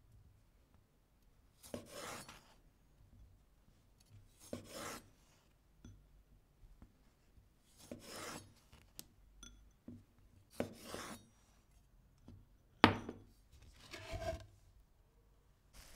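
Slow, separate rasping strokes of hand food preparation, about six in all, one every two to three seconds, each lasting under a second, with a sharp knock near the end.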